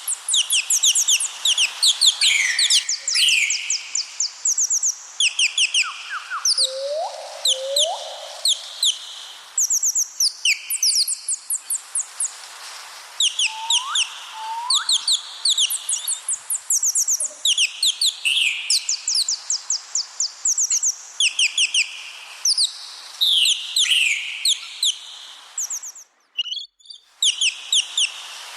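Birds chirping continuously in rapid, high trills of repeated notes, mixed with a few short rising calls, with a brief break near the end.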